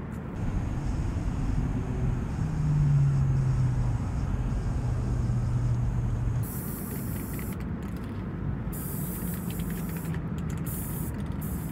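Aerosol spray-paint can hissing in three bursts in the second half, each starting and stopping abruptly, over a steady low rumble of traffic.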